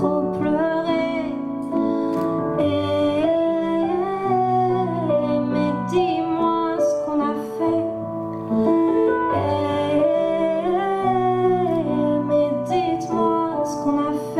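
A woman singing a song into a handheld microphone, her melody wavering with vibrato over an instrumental accompaniment of sustained chords.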